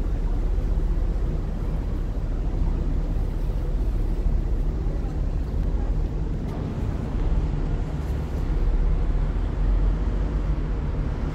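Passenger ferry's engine droning steadily, heard on board as an even low hum with a rushing noise over it.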